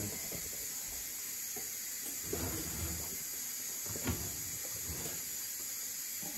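A blue enamel roasting pan knocking and scraping a few times on the wire oven rack as it is slid out of the oven, over a steady hiss.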